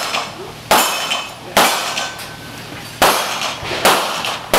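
Handgun shots at an outdoor range: five sharp reports at an uneven pace, roughly one a second, each with a short echo tail.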